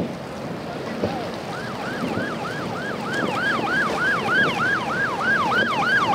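U.S. Coast Guard boat's siren in a fast yelp, about three rising-and-falling wails a second. It starts about a second and a half in and grows louder toward the end, over a steady rush of wind and water.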